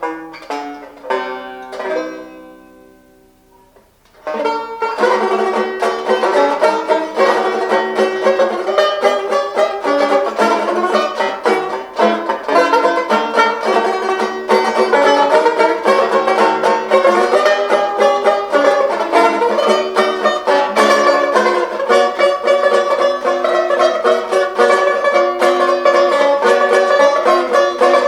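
1930s Este De Luxe tenor banjo played solo: a few notes ring out and fade over the first four seconds, then steady continuous playing resumes about four seconds in.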